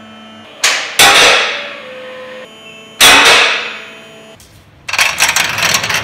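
Two loud metal bangs about two seconds apart, each ringing on for about a second in the garage, then a dense irregular rattling clatter near the end.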